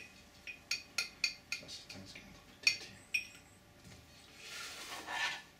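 Small paintbrush clinking against the rim of a glass jar of acetone: a quick run of light, ringing clinks over about three seconds. A brief soft hiss follows near the end.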